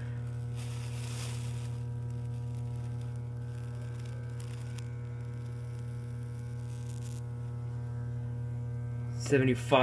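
Steady electrical mains hum from a variac-controlled high-current rig under heavy load, driving about 70 amps through a metal strip that is glowing red hot.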